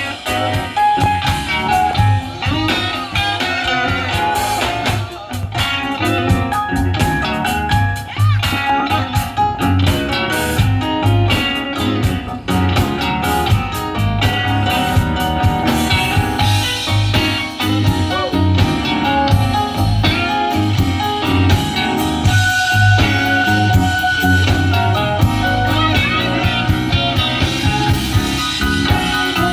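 Live band playing a blues number: electric guitar over bass and drum kit, with no singing.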